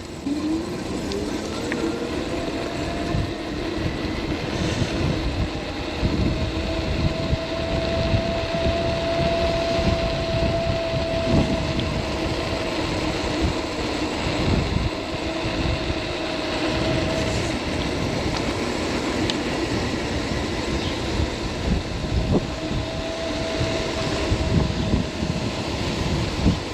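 350 W electric scooter motor running under way, with a steady low hum and a higher whine that comes and goes several times, over a rumble of wind and tyre noise.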